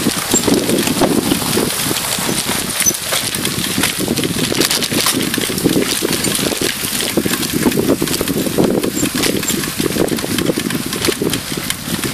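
Mountain bike riding fast over a rough dirt trail, heard from a handlebar-mounted camera: continuous rattling and knocking as the bike jolts over the ground, with wind buffeting the microphone.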